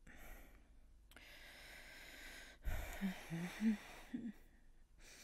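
A woman breathing audibly: a long, slow breath out like a sigh, followed by a soft low thump and a few short, quiet hummed murmurs.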